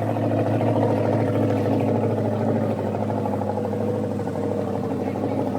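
Glastron CVX-20 jet boat's engine running at a steady pitch, a continuous drone that eases off slightly in level.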